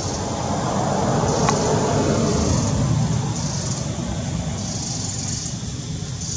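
A road vehicle passing by: its noise swells to a peak about two seconds in, then fades away. Over it runs a high buzz that comes and goes about every second and a half.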